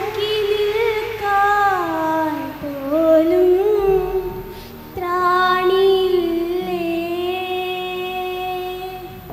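A high female voice singing a slow melody, with gliding, ornamented phrases that fall in pitch, then one long held note from about five seconds in.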